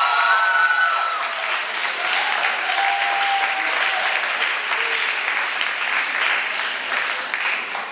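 Audience applauding, with shrill whoops and cheers over the clapping in the first second; the clapping thins out near the end.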